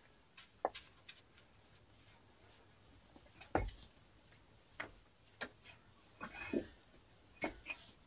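Bricks from an old clay-laid brick chimney being lifted off and set down: a series of irregular knocks and clunks, brick on brick.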